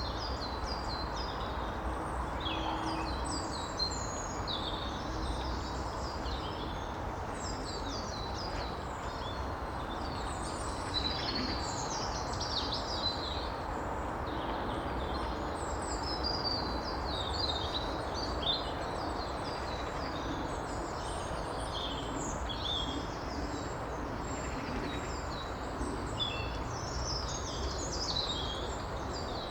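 Steady rush of a woodland stream, with many small songbirds chirping and trilling over it throughout.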